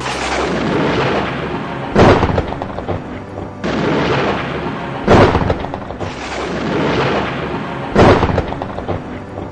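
Thunder sound effect: a rolling rumble broken by three sharp lightning cracks about three seconds apart, each fading back into rumble. A soft music bed plays underneath.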